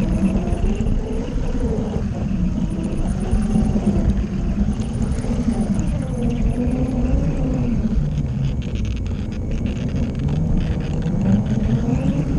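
Garden model train running along plastic track, heard from a camera riding on it: a steady rumble of wheels on the rails under a motor whine that wavers up and down in pitch. Between about eight and eleven seconds in, a patter of quick light clicks.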